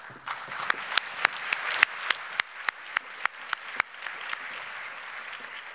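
Audience applauding, with sharp claps close to the microphone, about three a second, that stop about four seconds in while the applause carries on.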